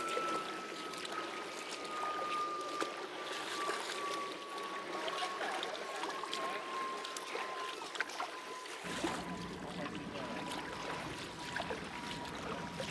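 Shallow water running over sand in a beach runoff channel, a steady trickling with many small crackling splashes. A thin steady tone slowly sinks in pitch throughout, and a low rumble joins suddenly about nine seconds in.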